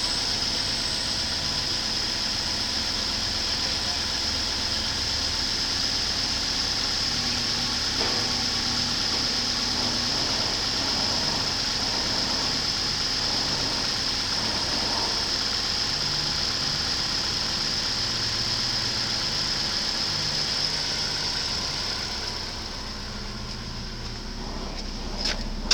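2010 Ford Fusion engine running steadily at idle during a salvage-yard engine test, with a constant high hiss over the engine note; the sound drops off somewhat about 22 seconds in.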